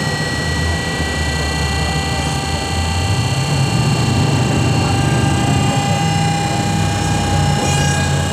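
Rolls-Royce Merlin 27-litre V12 aero engine running on a trailer run stand, turning its propeller, with steady high whining tones above the deep exhaust note. It gets a little louder about three seconds in and then holds steady.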